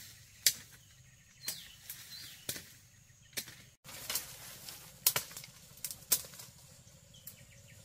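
A series of sharp, short knocks, irregularly spaced at roughly one a second, some coming in quick pairs.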